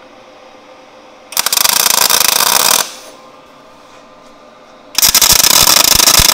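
MIG welding arc crackling in two bursts of about a second and a half each, with a pause between, on 1/8-inch mild steel with .025 wire. The arc is shielded with pure argon instead of a CO2 mix, the wrong gas for MIG on steel, which gives a sooty weld with poor penetration.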